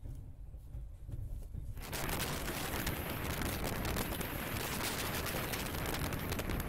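Low rumble of a moving train, then about two seconds in a sudden loud rushing and rattling noise takes over and keeps going.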